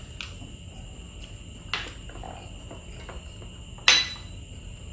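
Tableware knocks: two light clinks, then about four seconds in a sharp clink with a short ring as a metal spoon strikes a ceramic bowl.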